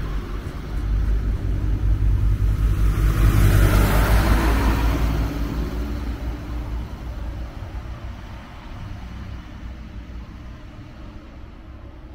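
Class 642 (Siemens Desiro Classic) diesel multiple unit pulling out of the station, its diesel engines rumbling. The sound peaks about three to four seconds in as the train passes, then fades away as it leaves.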